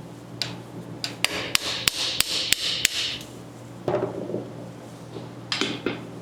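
Hammer blows on metal, about eight sharp ringing strikes in quick succession over the first three seconds, then two shorter clatters. A tool is being driven at a free-spinning transfer case drain plug to knock it out.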